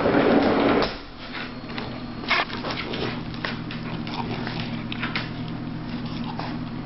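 Sussex Spaniel puppy and basset hound playing: a loud rough scuffle in the first second, then scattered clicks and scuffs of paws, nails and mouthing on rug and tile.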